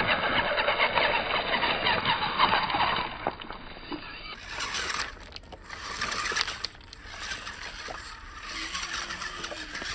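Small RC rock bouncer's twin electric drive motors whining, rising and falling in pitch with the throttle, while its tyres and chassis clatter over loose river stones. A little over four seconds in it turns quieter, mostly scattered knocks and clicks of stones with a fainter motor whine.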